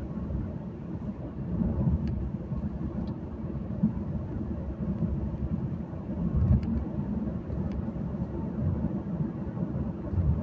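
Steady low rumble of a car driving along a road, engine and tyre noise heard from inside the cabin, with a few faint clicks.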